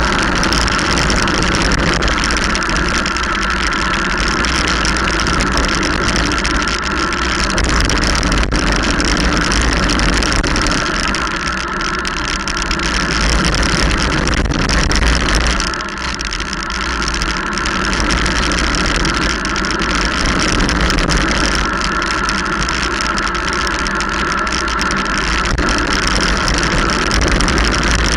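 Wind rushing over the microphone of a camera on a bicycle speeding downhill, with tyre noise on the wet road: a steady, loud rumbling rush that dips briefly about sixteen seconds in.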